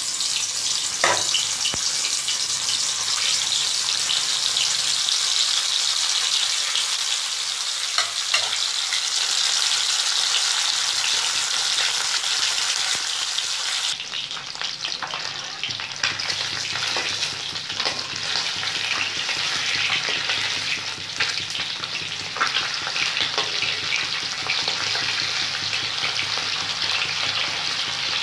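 Hilsa fish steaks sizzling steadily as they shallow-fry in hot mustard oil in a steel kadai, with a few short clicks and scrapes of a metal spatula against the pan.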